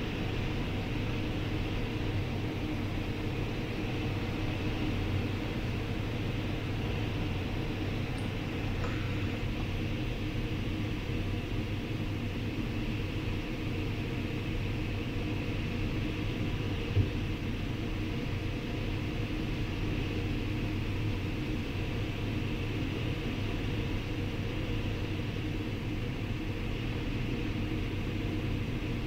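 Steady rush of airflow around a sailplane's cockpit canopy in gliding flight, with a low rumble underneath. A single short knock about seventeen seconds in.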